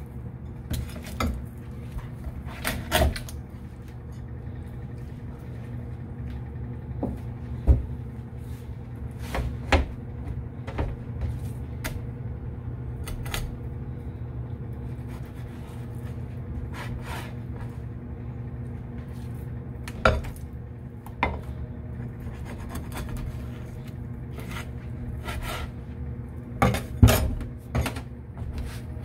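Knife and fish being worked on a wooden cutting board: scattered taps, knocks and scrapes, clustered around eight, twenty and twenty-seven seconds in, over a steady low hum.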